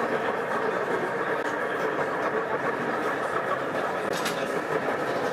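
Steady running sound of a BR Class 31 diesel locomotive from a 7mm scale model shunting on the layout, with no breaks or changes in level.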